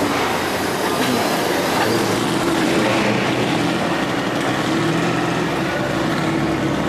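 Dodge Challenger's engine running with a steady low exhaust rumble as the car pulls slowly away.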